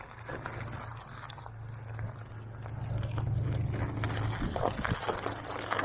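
Mountain bike rolling over a dirt trail, with small clicks and rattles over an even rushing noise. Under it a low steady hum grows louder through the middle and eases near the end.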